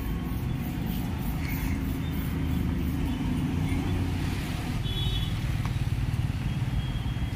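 Busy city street traffic: a steady rumble of passing cars and other vehicles.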